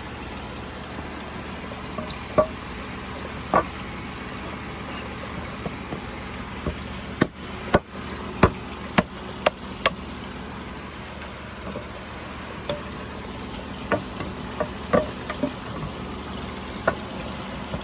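Scattered sharp wooden knocks and clicks, several in a quick cluster about halfway through, as wooden bridge slats are fitted onto the screws of the frame, over a steady rush of pond water.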